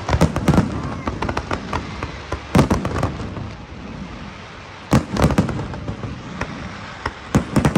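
Fireworks going off in a rapid, irregular series of bangs and crackles, with the loudest booms about two and a half seconds and five seconds in.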